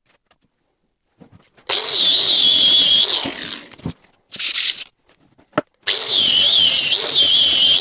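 Electric power tool working wood in two long runs, its high motor whine sagging and wavering as it takes the load. A short hiss and a few knocks come between the runs.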